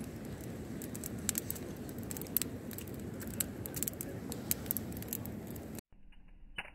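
Bonfire of dry twigs and sticks burning, crackling with frequent sharp snaps and pops over a steady low rushing noise. Near the end the sound drops abruptly to a much quieter crackle with a single snap.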